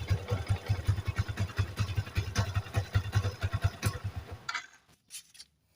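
Yamaha Vixion NVL's single-cylinder four-stroke engine idling with a rough, rattling noise from the clutch area when the clutch is pulled. The mechanic suspects a failed bearing in the clutch housing. The engine cuts off about three-quarters of the way through.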